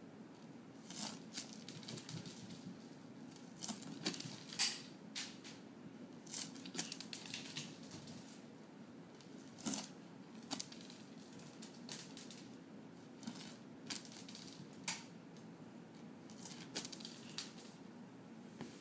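Irregular light clicks and taps of dry cat food kibble skittering across a hard tile floor and a cat's paws and claws striking the tile as she chases and bats at it, the sharpest tap about four and a half seconds in.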